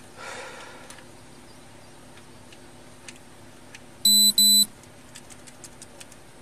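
Two short, loud electronic beeps in quick succession, each a steady high tone, from equipment in a police patrol car's cab. A brief rustle comes near the start, and a few faint clicks follow the beeps.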